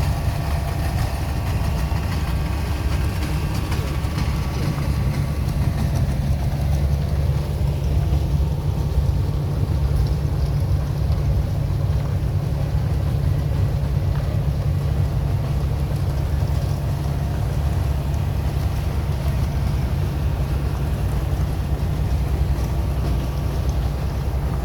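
An engine idling: a steady low rumble, with fainter higher tones over it in the first few seconds.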